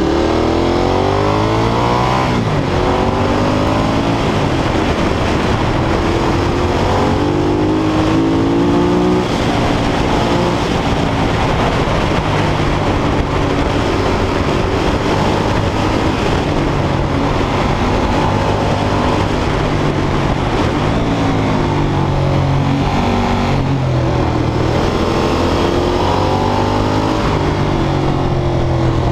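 Ducati Monster 1200's L-twin engine pulling hard through the gears: its pitch climbs under throttle and drops back at each upshift, over and over.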